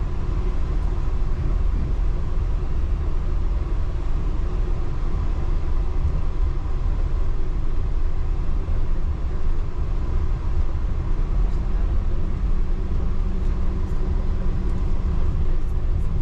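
Yurikamome rubber-tyred automated train running steadily, heard inside the cabin: a low, even rumble of the tyres on the concrete guideway with a faint steady motor hum over it.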